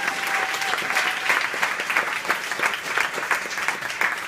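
Audience applauding: many hands clapping steadily. A steady high tone sounds over it for about the first second, then stops.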